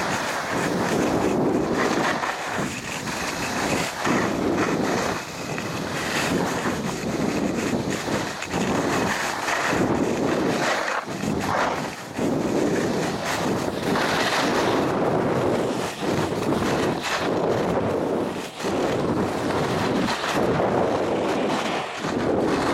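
Wind buffeting the microphone and skis hissing and scraping over snow during a downhill run. The rushing noise rises and falls every second or two.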